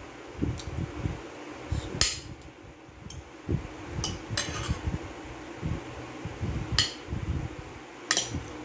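Two metal forks clinking and scraping against a ceramic plate while cutting soft banana in melted ice cream: about six sharp clinks spread irregularly over several seconds.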